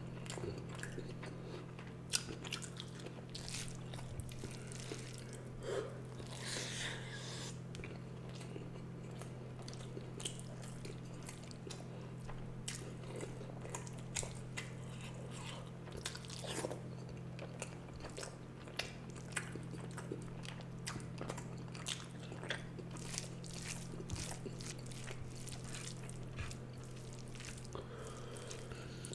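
A person chewing and eating rice with fish curry and egg curry close to the microphone, with frequent short wet clicks and smacks of mouth sounds. A steady low hum runs underneath.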